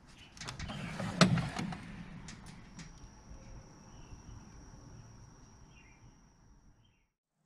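A metal tool-chest drawer is pulled open on its slides, with a quick run of clicks and a sharp clack of tools shifting about a second in. Faint chirps and a steady high tone follow, and the sound cuts off just before the end.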